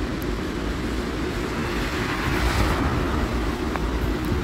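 Steady low rumble and hiss with no distinct events: wind buffeting the microphone and rain on an open-air light-rail platform, with a Cologne Stadtbahn train standing at the platform.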